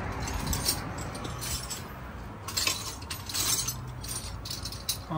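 Scattered light mechanical clicks and clinks of hand tools and metal parts being handled, over a faint low hum.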